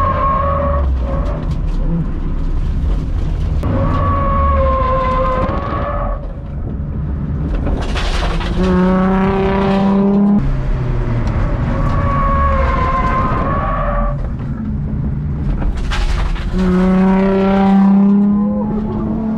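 Honda Civic D15B four-cylinder engine running hard on track, heard inside the stripped cabin with road and wind noise. The engine note holds a steady pitch, then twice, after a surge of rushing noise, drops to a lower, stronger hum.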